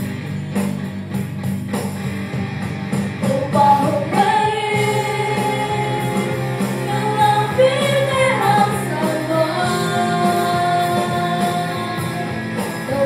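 A group of women singing a song with a live band of drums, bass and guitar. The first few seconds are instrumental, and the voices come in about four seconds in.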